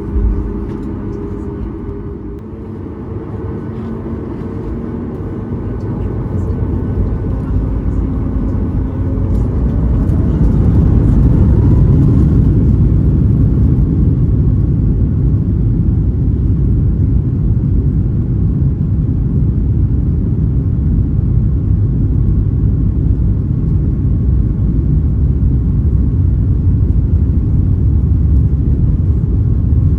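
Boeing 737 MAX 8-200 jet engines heard from inside the cabin: steady tones at first, then spooling up with a rising whine over a few seconds into a loud, steady rumble as the takeoff roll gets under way.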